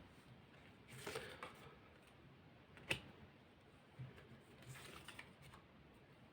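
Near silence with a few faint rustles and light clicks of playing-style cards being handled and laid down, the sharpest click about three seconds in.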